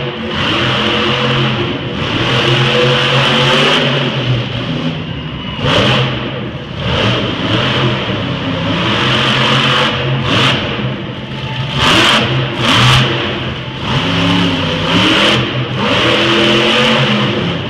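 Bigfoot monster truck's engine revving hard and repeatedly, rising and falling as it powers through freestyle spins and wheelies. There are several brief, louder surges in the second half.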